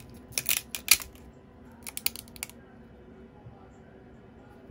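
Resin 3D-print supports snapping off a printed 1/24 scale car chassis by hand: a quick run of sharp, crisp cracks, then a second, shorter cluster about two seconds in.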